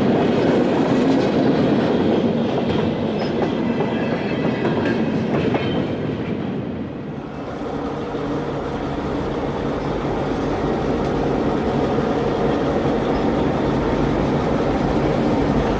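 Freight train running by, its wheels clicking over rail joints over a steady rumble; the sound eases briefly about seven seconds in, then builds again.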